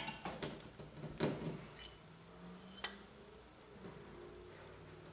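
Small metal hardware parts clinking and knocking as they are handled, with a cluster of knocks in the first two seconds and one sharp click a little before the three-second mark.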